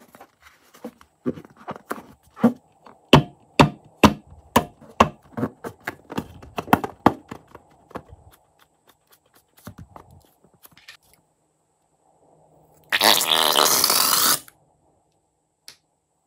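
Rubber balloon full of slime squeaking and creaking in a fast run of sharp squeaks as hands squeeze it. About 13 seconds in, a loud rush of about a second and a half as the slime is forced out of the balloon's opening.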